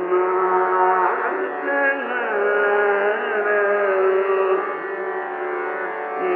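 Hindustani classical vocal music in Raag Lalit: a male voice sings slow gliding phrases over a steady drone.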